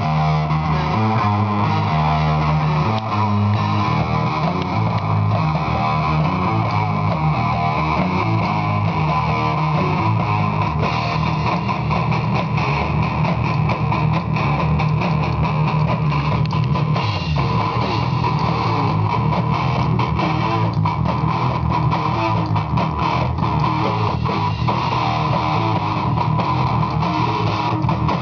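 Live rock band playing through amplifiers: electric guitar riff over bass guitar and drum kit. The drums grow busier from about ten seconds in.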